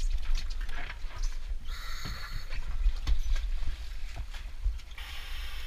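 Scuba gear knocking and clattering on the deck of a dive boat over a steady low rumble, with a hiss starting near the end.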